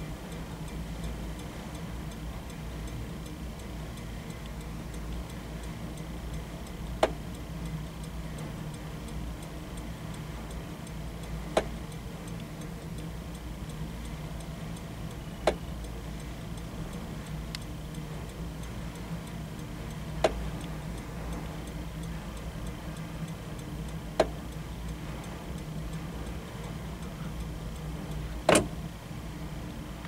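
Six single sharp clicks, roughly four seconds apart, over a steady low hum: the turn-signal switch of a 1960–62 Chrysler clicking as its electronic cancel switch is tested.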